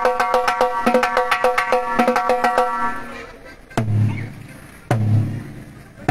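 Timbales struck in a fast, even run of ringing hits, about five a second, stopping about three seconds in. Then a low drum of the kit is hit singly, three times about a second apart, the way drums are checked one by one at a sound check.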